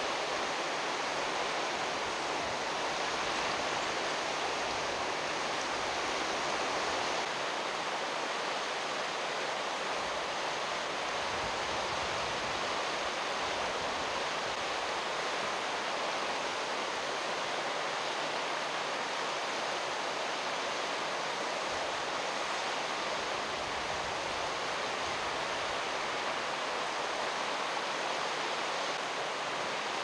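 A mountain stream rushing steadily over rocks: a continuous, even water noise.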